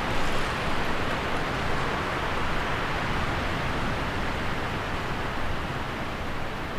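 A waterfall's falling water: a steady, even rush with no breaks.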